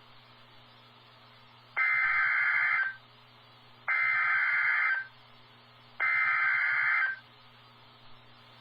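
NOAA Weather Radio Emergency Alert System SAME header: three bursts of digital data tones, each about a second long with about a second between them, over a faint steady hum from the radio. It is the coded header that opens a warning broadcast.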